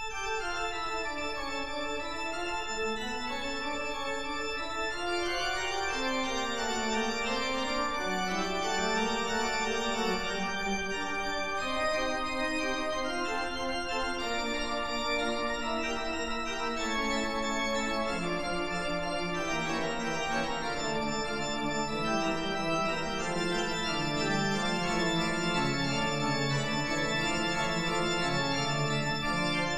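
Organ music: several melodic lines moving over held low notes, starting abruptly and running at an even level.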